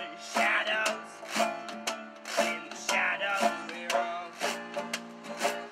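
Acoustic folk trio playing: banjo and nylon-string guitar picking a tune over a washboard scraped in a steady beat of about two strokes a second.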